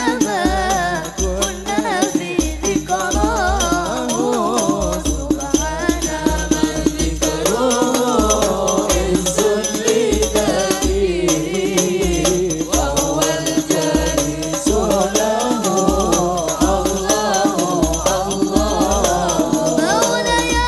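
Arabic sholawat (Islamic devotional song) sung by a single voice in gambus style, over a steady deep drum beat and rattling hand percussion.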